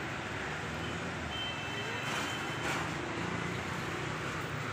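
Steady background noise of a busy market shop, with a faint steady high tone for about a second and a half near the middle.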